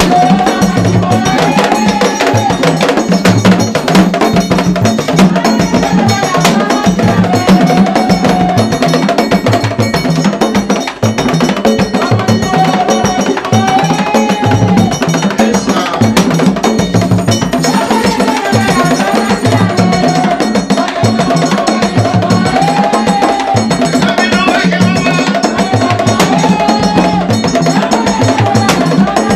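Haitian Vodou ceremonial drumming on skin-headed hand drums: a fast, steady, driving rhythm. Over it a group of women sings a repeating melody that rises and falls.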